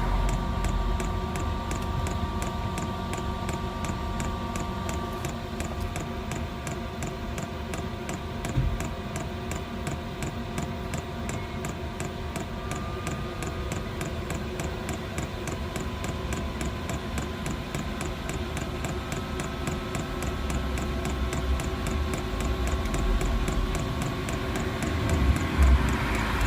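Diesel air heater running on test: its fuel dosing pump ticks steadily at about two to three clicks a second over the steady hum of the combustion fan.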